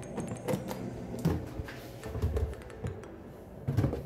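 Light clicks and knocks of plastic containers and kitchen things being handled on the counter and stove, with a few duller thumps.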